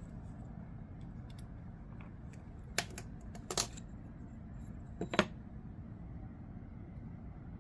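Small metal parts of a folding knife clicking and clinking against each other and a hard surface as they are handled and set down: a cluster of clicks about three seconds in and a sharper pair about five seconds in, over a low steady room hum.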